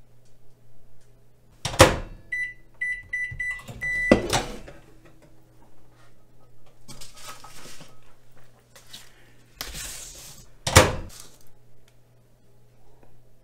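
Microwave oven in use: the door shuts with a clunk, a row of short keypad beeps and a longer beep set it going, and it hums steadily for a couple of seconds. After some rustling, the door clunks loudly again about eleven seconds in.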